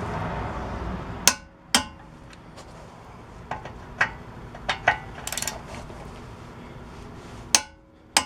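Scattered sharp metallic clinks and knocks of hand tools and steel bolts: mechanic's tools at work on the front suspension, with a brief rattle in the middle.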